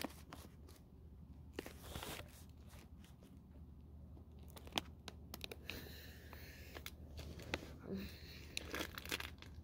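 Faint crinkling and rustling of a plastic fruit-snack pouch being handled, with scattered small clicks.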